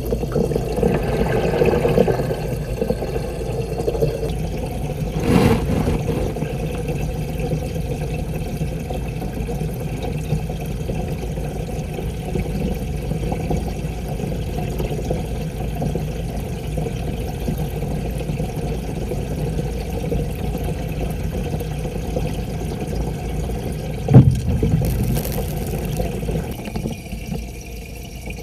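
Steady low hum and water noise of a running aquarium filter and pump, heard through a camera submerged in the tank. A soft knock comes about five seconds in, and a sharper, louder knock comes near the end.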